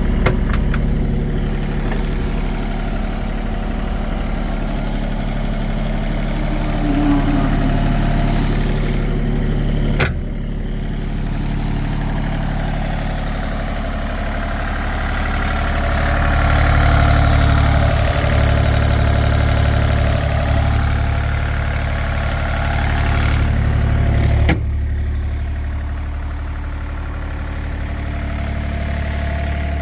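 Takeuchi mini excavator's diesel engine running steadily. Its note shifts with a sharp clunk about ten seconds in, grows louder and busier in the middle, and shifts again with another clunk later on.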